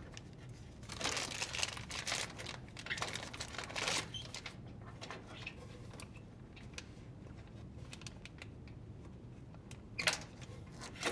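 Plastic crinkling and light clicks as a washer's stator wire harness is handled: the plastic covering is pulled back off the plugs and the harness plug is worked loose from the main harness. The rustling comes in short bursts for the first few seconds, with scattered small clicks after and another short burst near the end.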